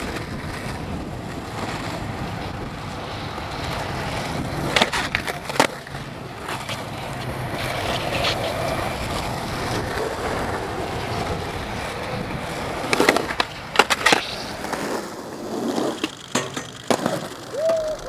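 Skateboard wheels rolling on rough concrete and asphalt, with several sharp board pops and clacks from tricks and landings, a pair about five seconds in and a cluster about thirteen to seventeen seconds in.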